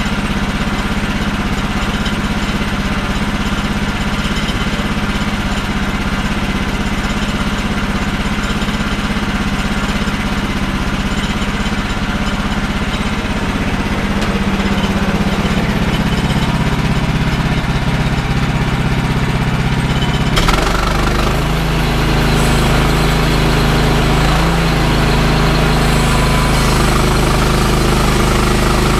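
Portable bandsaw sawmill's gas engine running steadily as the sawhead is pushed along a fir log. About twenty seconds in the sound changes suddenly to a deeper, slightly louder hum.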